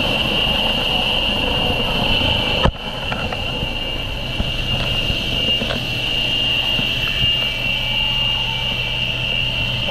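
Helicopter in flight heard from inside the cabin with the side door open: a loud, steady rumble of rotor and engine with a steady high whine on top, briefly broken about two and a half seconds in.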